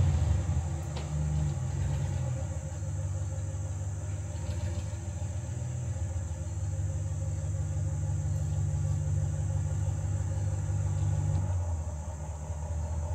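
Ram pickup truck's engine idling with a steady low rumble as the truck backs slowly, just after being started.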